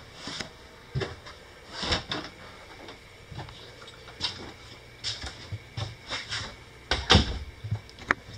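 Footsteps and soft knocks of someone walking through a fifth-wheel trailer's interior: irregular short thumps about once a second, the loudest shortly before the end.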